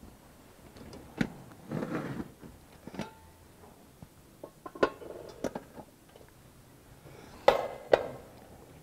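Scattered knocks and clinks of items being handled and set down on a communion table, one with a short ring, and a brief rustle. The two loudest knocks come close together near the end.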